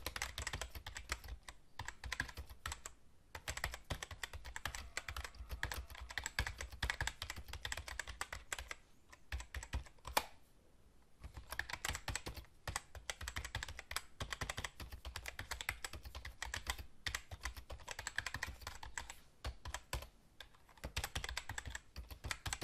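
Rapid computer keyboard typing, a fast run of key clicks with short pauses. There is a longer break about halfway through, broken by one sharper click.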